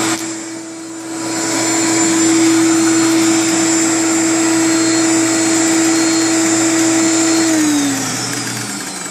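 Hoover Conquest upright vacuum cleaner running steadily, briefly dipping in loudness about a second in. About three-quarters of the way through it is switched off and the motor winds down, its pitch falling.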